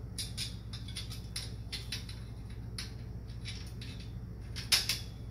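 Light scattered clicks and taps of metal hardware and game parts being handled during assembly, with one louder sharp click near the end.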